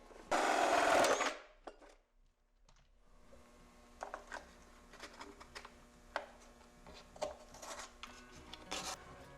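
A handheld power drill runs in one short burst of just under a second, boring the pilot hole for the port in a motorcycle fairing's speaker pod. Scattered light taps and clicks of parts being handled follow.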